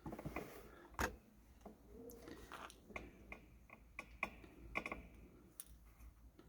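Scattered small clicks and taps of resistors and hand tools being handled while parts are fitted to an electronics kit's circuit board, with one sharper click about a second in and a run of clicks from about three to five seconds in.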